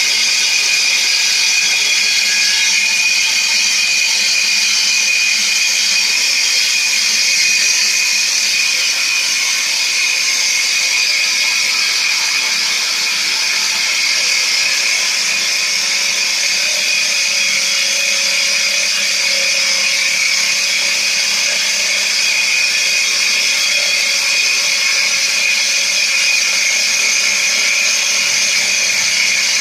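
Bosch GWS 8-100 CE angle grinder fitted with a 7-inch circular saw blade, running steadily with a high-pitched whine as it is pushed along a rail, sawing through a board.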